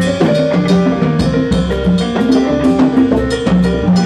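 Live jazz band playing: piano with a drum kit keeping a busy rhythm under it.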